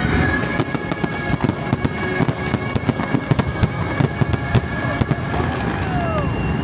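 Fireworks finale barrage: a rapid string of bangs from aerial shells over a sustained chord of the show's orchestral soundtrack, with a few falling whistles near the end.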